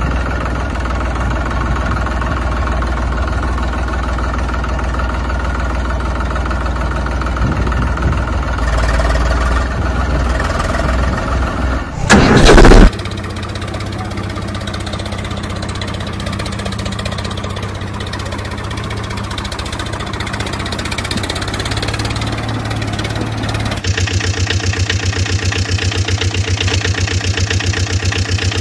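Tractor engine sounds, running and idling in three stretches that change abruptly at about twelve and twenty-four seconds in. There is a short, very loud burst at about twelve seconds, and a fast, even chugging in the last few seconds.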